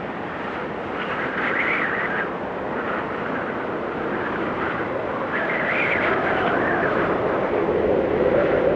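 Blizzard wind blowing steadily, with two gusts about a second in and again about five seconds in, where the sound rises higher in pitch and then falls back.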